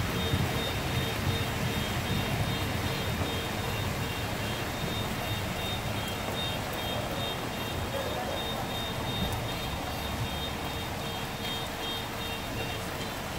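Vehicle engine running low as it drives through deep floodwater, over a steady hiss of water. A faint electronic beeping repeats all the while.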